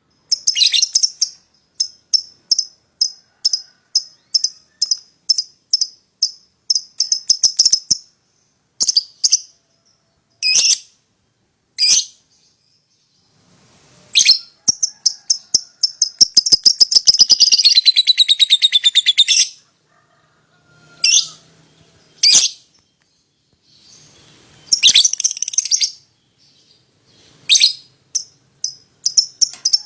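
A pair of young lovebirds calling: a run of short, sharp, high chirps about three a second, then scattered single calls. About halfway through comes a long, fast, chattering trill (the 'ngekek') that falls in pitch and lasts about four seconds.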